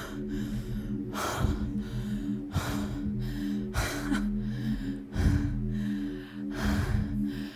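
A person's breathy gasps and exhales, six of them about a second apart, over a steady low hum of sustained tones.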